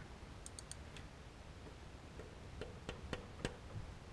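Faint, scattered metallic clicks from a ratchet on a long extension with an oil filter wrench being worked on the oil filter: three quick clicks about half a second in, then single clicks spaced out through the rest.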